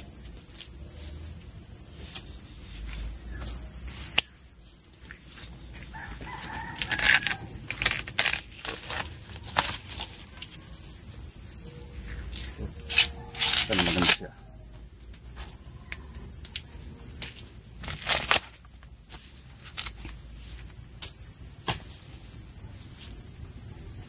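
Steady high-pitched chorus of insects, with scattered crackling and rustling from dry corn husks being handled and peeled, and louder bursts of rustling around the middle.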